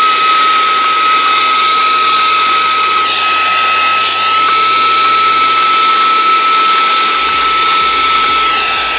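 Pando V9 Pro cordless vacuum cleaner running as a handheld with no nozzle fitted, sucking up cat litter: a steady high motor whine over the rush of suction. At the very end it is switched off and the whine falls away. Its dust bin is nearly full, so litter is starting not to go in.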